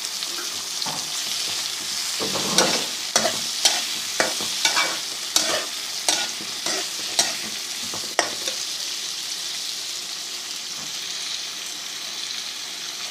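Chopped onions sizzling in hot ghee in a kadhai. A spoon stirs them, scraping the pan about twice a second from about two seconds in until about eight seconds, then the onions sizzle on steadily.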